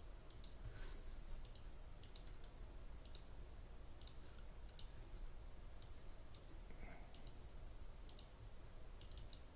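Faint, irregular clicks of a computer mouse and keyboard, often coming in pairs, over a low steady hum.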